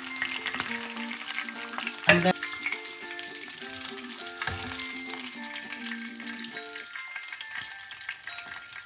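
Hot oil sizzling and crackling on a flat iron tawa as grilled chicken legs are lifted off with metal tongs, with one sharp clack about two seconds in. Soft background music with held notes fades out about seven seconds in.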